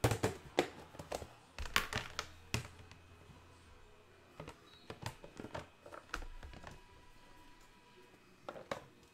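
Trading cards and their plastic sleeves and holders being handled and set down on a desk: a run of clicks, taps and light rustles, busiest in the first three seconds and again around five to six seconds in, with a couple more near the end.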